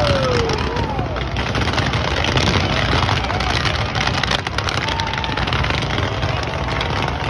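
Fireworks set off at close range: a dense, continuous barrage of crackling and bangs over a steady low rumble.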